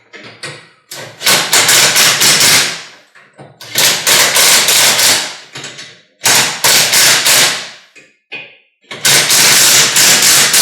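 Power impact driver hammering in four bursts of about one and a half to two seconds each, running a door mounting bolt tight.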